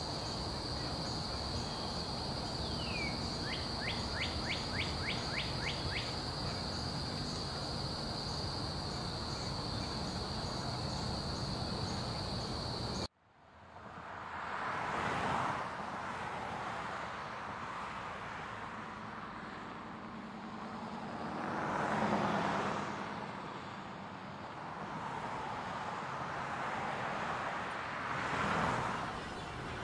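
Outdoor ambience: a steady high-pitched whine over a noise bed, with a quick run of about eight ticks partway through. After a sudden cut, road traffic noise follows, with vehicles swishing past every few seconds.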